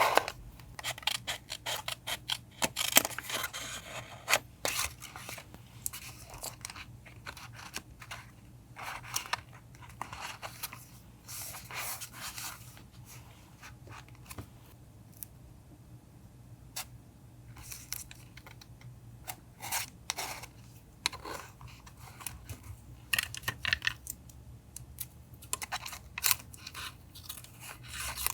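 Paper being handled for a journal collage: irregular rustling, crinkling and tearing of paper with scraping and small clicks, quieter for a few seconds midway.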